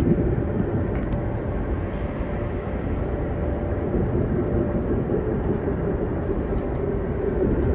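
Berlin S-Bahn train running along the track, heard from inside the carriage: a steady rumble of wheels on rails with a faint steady hum over it.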